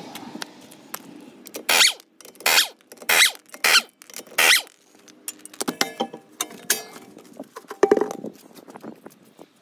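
Pneumatic impact wrench spinning off a wheel's lug nuts in five short bursts, followed by metal clinks and clatter as the nuts and wheel are taken off, with a louder knock near the end.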